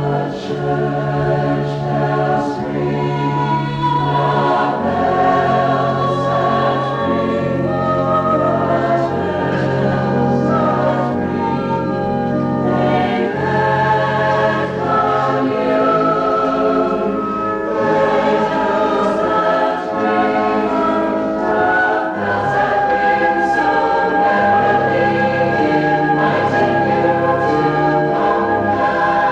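Choir singing in sustained chords, with a low bass line stepping between held notes every few seconds beneath the shifting upper parts.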